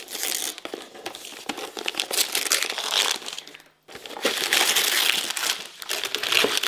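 Wrapping paper crinkling and rustling as a present is torn open by hand, breaking off briefly about four seconds in and then going on.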